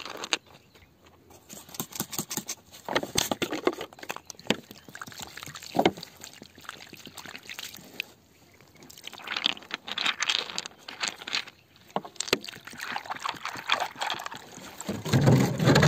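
Hands sloshing and splashing muddy water in a small dug pit, pouring it over crystals to wash them, with irregular wet scraping and clicks of stone and crystal knocking together.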